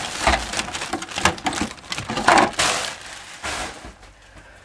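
Thin plastic packing bag rustling and crinkling in a series of irregular handfuls as it is pulled out of a cardboard box, dying away in the last second.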